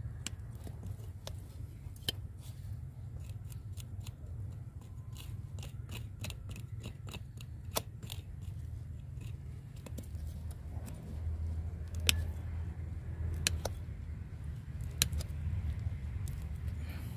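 Hand pruning shears snipping and clicking at the tree's roots in the soil. A quick run of sharp snips comes in the middle, then a few single louder snips near the end, over a steady low background hum.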